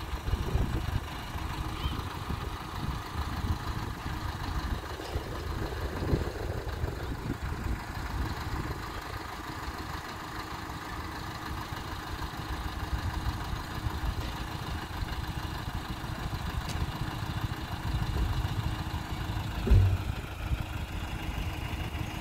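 A heavy vehicle's engine idling with a low, steady rumble; near the end there is a single loud thump.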